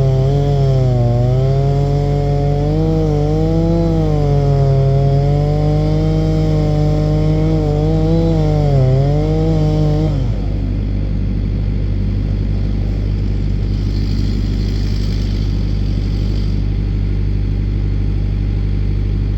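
Chainsaw running at high revs, its pitch dipping and recovering repeatedly as it bogs under load in the cut. About ten seconds in the pitch drops away as it winds down, leaving a steady low engine hum that runs underneath throughout.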